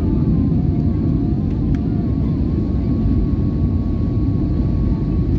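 Jet airliner cabin noise during the landing flare just above the runway: a steady low rumble of engines and airflow, with a thin engine whine that dips slightly in pitch about two seconds in.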